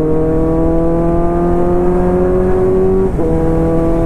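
Kawasaki Z900's inline-four engine pulling under steady throttle, its note slowly rising, with a quick break and change in pitch about three seconds in, as on a gear change. Wind rumble on the microphone underneath.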